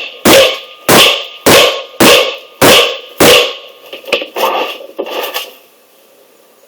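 Hammer blows on a seized wheel hub assembly and brake rotor, struck to break the hub loose: six loud, ringing metal strikes in a steady rhythm of under two a second, then a few lighter clattering knocks before it stops.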